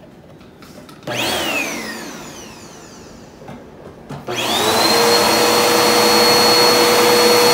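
Upright vacuum cleaner switched on: about a second in it starts with a burst whose whine falls away as the motor winds down, then about four seconds in the motor spins up again and settles into a steady high whine.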